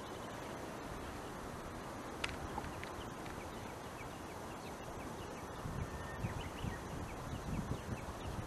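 Quiet waterside outdoor ambience with a light, even hiss, one sharp click a little over two seconds in, a run of faint quick high chirps repeating from about three seconds on, and soft irregular low thumps starting about six seconds in.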